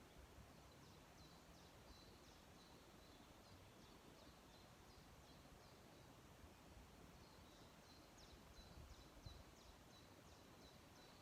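Faint, high-pitched chirping outdoors: quick runs of short downward-sweeping notes, several a second, that pause briefly about halfway through, over a low rumble of background noise.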